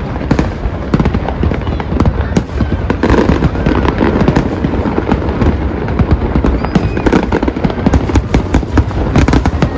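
Fireworks display in full barrage: a rapid, unbroken stream of bangs and crackles from bursting aerial shells over a steady low rumble.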